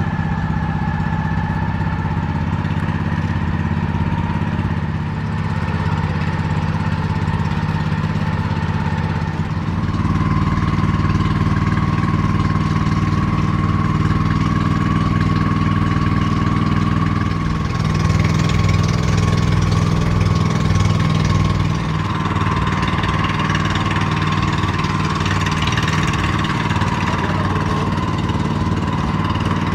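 A motor engine running steadily. Its pitch and level rise slightly about a third of the way in, and a hiss joins for a few seconds just past the middle.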